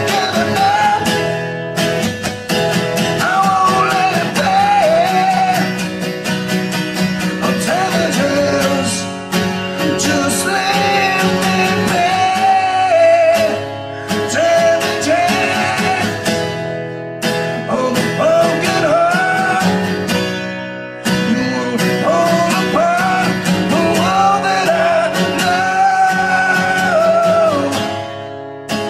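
A man singing to a strummed acoustic guitar, in phrases with short breaks between them and held notes that waver with vibrato.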